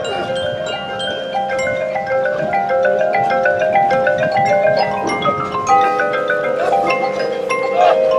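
Marching band front ensemble playing a quick mallet-percussion passage, with marimba-like notes running up and down over held notes.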